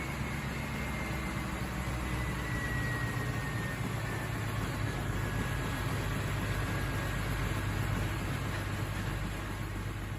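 Large Fairbanks Morse two-cylinder slow-speed diesel engine running steadily, with a faint high whine slowly falling in pitch.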